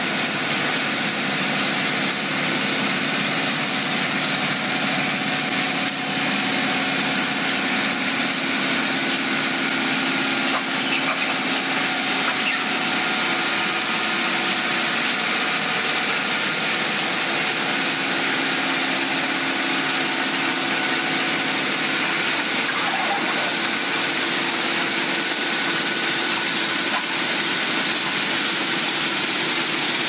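Railway ballast-cleaning machine at work: its engines running steadily while the toothed digging wheel churns through track ballast, a constant dense noise of machinery and grinding stone with a faint steady hum.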